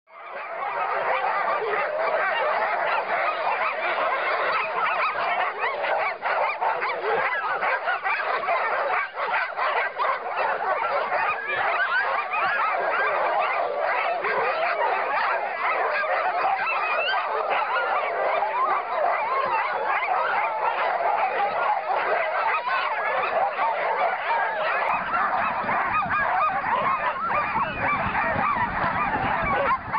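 A team of sled dogs barking, yelping and howling all at once in a dense, continuous chorus, the excited din of huskies in harness waiting to run. About 25 seconds in, a low rumble joins underneath as the team gets moving.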